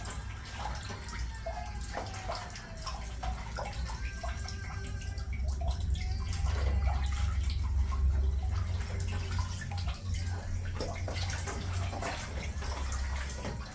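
Water sloshing and dripping as leafy greens are washed by hand to rinse off sand, with a steady low rumble underneath.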